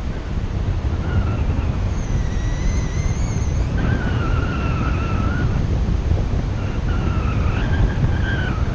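Wind rushing over a paraglider pilot's action camera in flight: a steady, heavy low buffeting. Thin, wavering whistles come and go over it.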